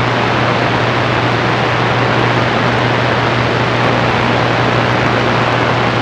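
CB radio receiver on channel 28 putting out steady static hiss with a low hum underneath, with no voice on the channel.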